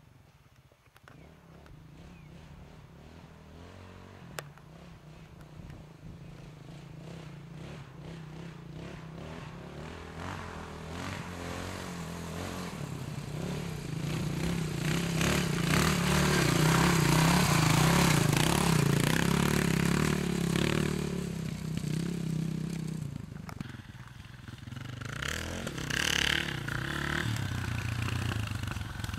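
Off-road motorcycle engine approaching over a rough trail, growing steadily louder to a peak about two-thirds of the way through, then dropping away. Near the end another dirt bike's engine runs close by.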